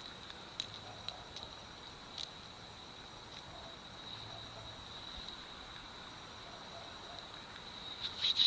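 An insect singing one steady high-pitched trill without a break. A few sharp clicks sound over it, with a quick run of them near the end.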